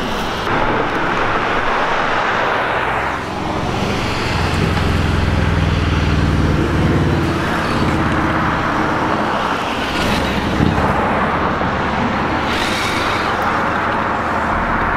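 Road traffic: cars passing close by, a steady rush of tyre and engine noise, with one engine's low hum loudest around the middle.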